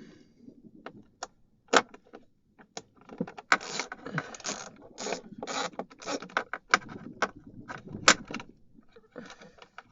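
Screwdriver loosening screws in a car's plastic dashboard trim around the instrument cluster: a run of irregular clicks and short scrapes, with a louder click about eight seconds in.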